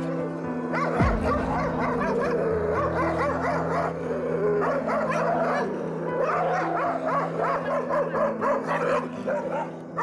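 Several Jindo dogs barking and yelping rapidly and on top of one another: wary, territorial barking at a dog being walked past outside their fence. Background music plays under the barking.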